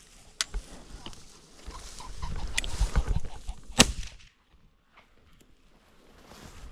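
A rooster pheasant flushing, with wing flutter and its cackle, then one loud sharp bang about four seconds in.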